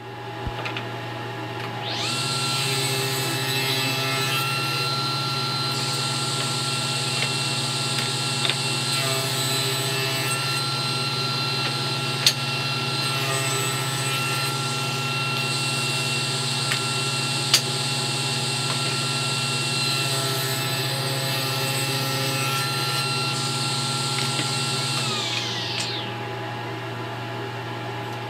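Table saw switched on and run while small pieces are cut for the seat's corner braces, with passages of heavier noise as the blade cuts. It is switched off about 25 seconds in, and its pitch falls as the blade spins down. A steady machine hum runs underneath and goes on after the saw stops, with two sharp clicks midway.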